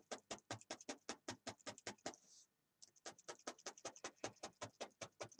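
Felting needle stabbing rapidly and repeatedly through loose brown wool tops into a felt backing, tacking the unfelted wool on. It makes a quiet, even ticking of about six or seven pokes a second, with a brief pause about two seconds in.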